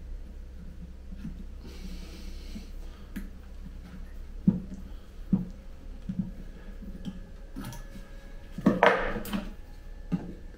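Scattered knocks and clicks of hard objects being handled, with a faint hiss about two seconds in and a louder scraping rush about nine seconds in: the handling noises of setting a tree into a plastic pot while repotting.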